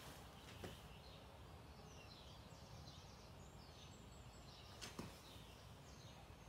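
Near silence: quiet garage room tone with faint high bird chirps and two soft clicks, one near the start and one about five seconds in.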